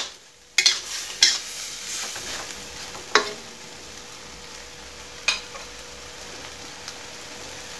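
Shrimp and holy basil sizzling in a wok while a metal spatula stirs them, with a few sharp clinks of the spatula against the wok. The stirring stops about two-thirds of the way through and the sizzling carries on.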